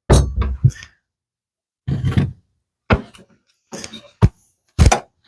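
Irregular knocks and clunks, about five bunches of them, as a straightened coat-hanger wire is worked through a hole drilled in a wooden piece on a workbench.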